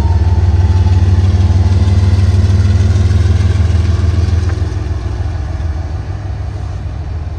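Diesel locomotive engine running with a deep, steady drone that grows fainter from about halfway through.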